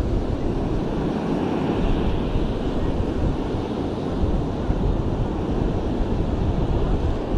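Wind buffeting the microphone in a steady low rumble, with surf washing in the background.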